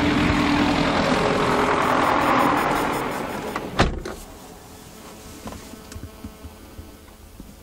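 A loud whirring noise that fades over about three seconds, then a single sharp click, the loudest sound, about four seconds in, followed by quieter small knocks.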